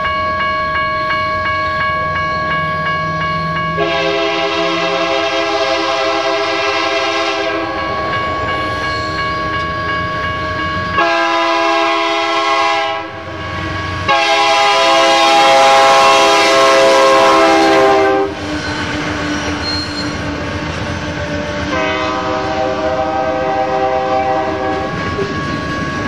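Freight locomotive's multi-chime air horn sounding four times as the train approaches and passes, the third blast the loudest, with the locomotives and freight cars rumbling by on the rails. A steady ringing tone from electronic crossing bells runs underneath.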